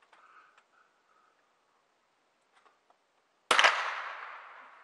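One rifle shot about three and a half seconds in: a sharp crack with a long echoing tail that fades over about a second, after a couple of faint clicks.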